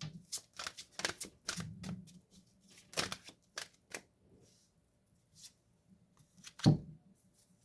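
Tarot cards being handled: a quick run of card flicks and snaps, thinning out to a few scattered taps, then one sharper knock near the end as a card is set down.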